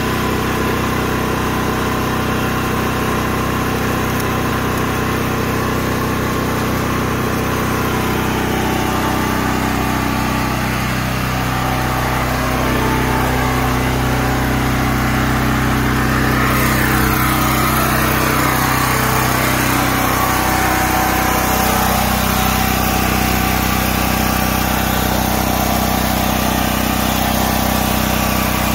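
Predator 9000 portable generator's 420cc single-cylinder gasoline engine running at a steady speed, growing a little louder and brighter from about halfway on.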